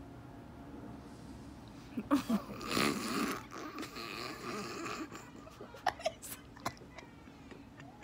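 A woman bursting into hard laughter about two seconds in, then trailing off into quieter laughs over a faint steady hum.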